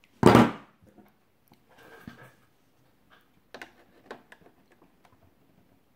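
A loud clatter about a third of a second in, then scattered light clicks and taps of metal pliers gripping and working a screw in a hard plastic toy casing.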